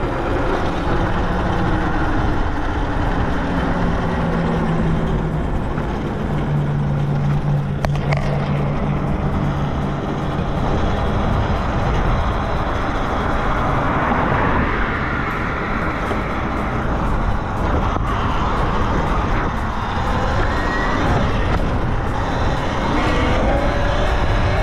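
Wind rushing over the helmet microphone and road noise while riding a Talaria Sting R electric dirt bike in traffic. A low steady hum in the first ten seconds or so steps down in pitch about five seconds in, then fades.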